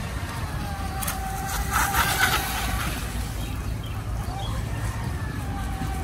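Radio-controlled speedboat running fast across the water: a steady motor whine that wavers slightly in pitch as the boat moves, with a louder rushing burst about two seconds in.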